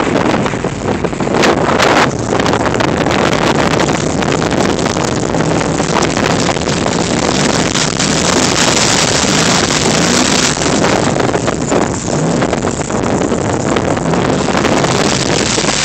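Vehicle engine running off-road under heavy rumble and wind noise on the microphone, its pitch rising and falling a little.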